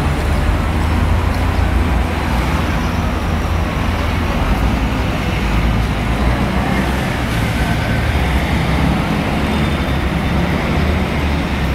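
Busy city street traffic: buses and cars running past with a continuous low rumble under a steady wash of road noise.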